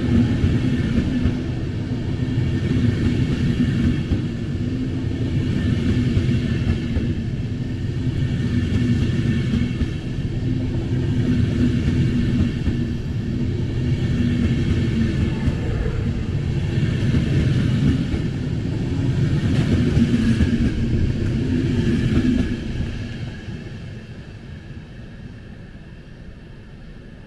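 DB Intercity passenger coaches passing through a station at speed: a steady rumble of wheels on rail that swells and dips every few seconds as the coaches go by. It fades away over the last few seconds as the end of the train passes.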